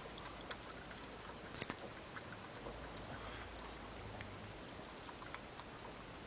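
Sealyham Terrier puppies eating and lapping from a plastic bowl: faint scattered clicks and licking noises. A few short high chirps come through now and then.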